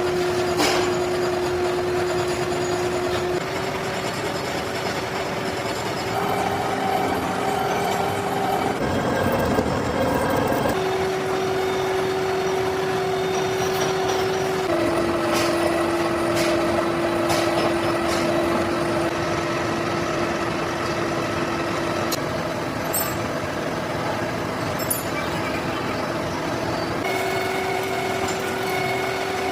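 A metalworking machine tool running and cutting metal, with a steady whine over constant machining noise. The whine jumps to a new pitch every few seconds.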